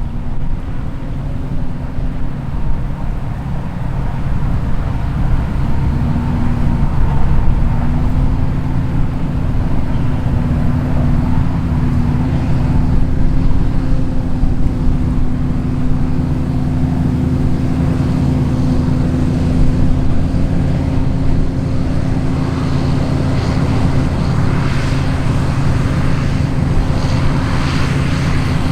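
Large John Deere diesel engine running steadily, with a deep drone that grows louder over the first several seconds. Some hiss is added in the last few seconds.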